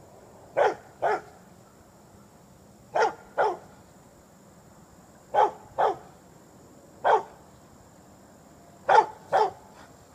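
English springer spaniel barking in short pairs, nine barks about two seconds apart, at vultures perched in the trees.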